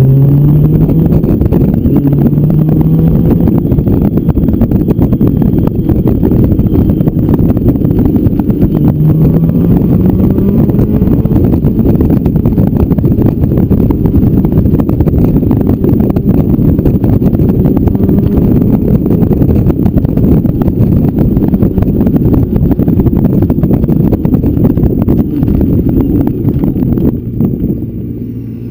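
Motorcycle engine accelerating, its pitch rising through the gears near the start and again about nine seconds in, under heavy wind rush on a bike-mounted microphone. The sound eases off near the end as the bike slows.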